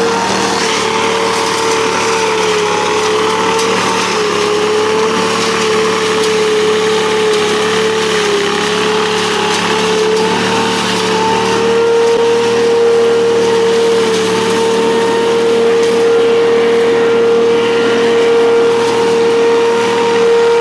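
Truck-mounted gas-engine leaf vacuum running steadily: a strong fan whine holding one slightly wavering pitch over a rush of air as leaves are sucked up the wide hose.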